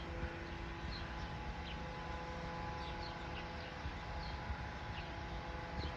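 Outdoor evening background: small birds giving scattered short, high chirps over a steady low rumble and a faint steady hum.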